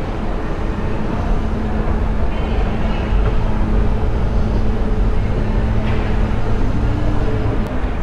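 Metro station escalator running while riding up it: a steady low rumble with a faint hum.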